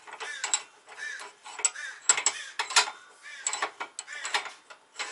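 Bench vise being worked with a steel control arm in its jaws, pressing in a small polyurethane bushing: a quick, irregular run of metal clicks and short squeaks.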